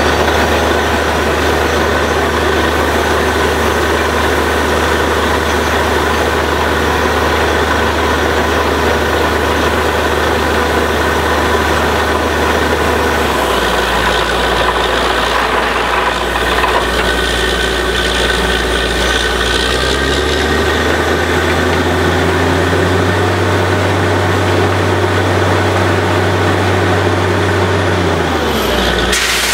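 Truck-mounted borewell drilling rig's engine running steadily at a loud level, its low note shifting a couple of times partway through and falling away near the end.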